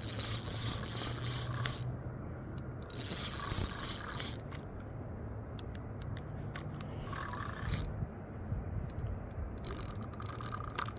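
Fishing reel ratcheting in bursts under the pull of a hooked catfish: two long runs of clicking in the first half, then a shorter one.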